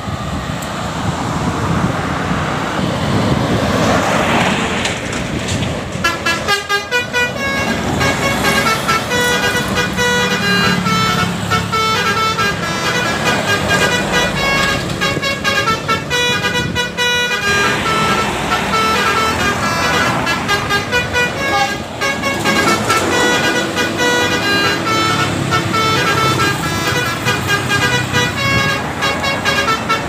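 Traffic passing, then from about six seconds in a bus's multi-tone telolet horn playing a rapid melody of short stepped notes, with a few brief breaks.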